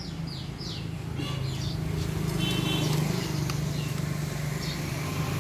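A steady low mechanical hum, a little louder from about two seconds in, with a few quick falling bird chirps in the first second and more chirps later.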